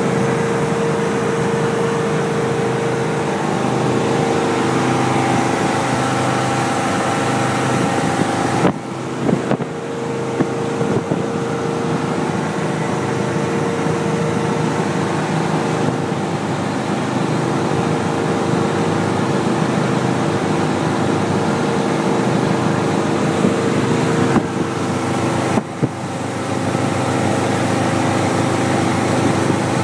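Chris-Craft XK-22's 350 FLJ marine V8, a solid-lifter small-block Chevrolet, running at a steady speed as the boat runs across the water. Its note holds even throughout, with brief dips in level about nine seconds in and again near twenty-five seconds.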